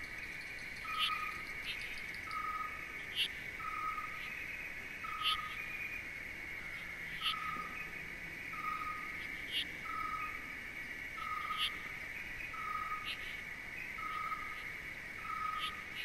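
Steady high insect-like chirring, with a short call repeating evenly about every three-quarters of a second and brief higher chirps every second or two: a looped nature-sound background.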